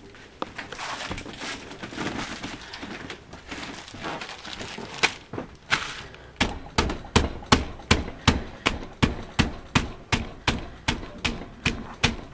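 Plastic bag of strawberries crinkling as it is handled, then, about six seconds in, a fist pounding the bag on a countertop in an even run of thuds, a little under three a second, crushing the strawberries.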